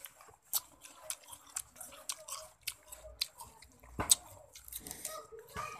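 Close-up chewing and wet mouth clicks from someone eating rujak, fruit in a spicy sauce: an irregular run of short smacks, a few a second, with one sharper click about four seconds in.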